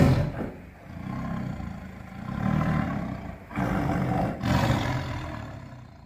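Logo-reveal sound effect: a loud hit, then a run of low, rough roars that swell and fade about once a second and die away near the end.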